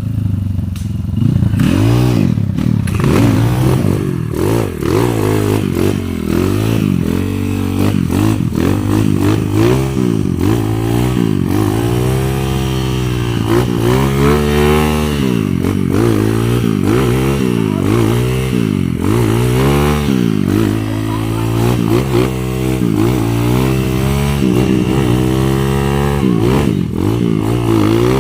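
Trail motorcycle engines revving up and down over and over, the pitch rising and falling every second or two, with more than one bike heard at once.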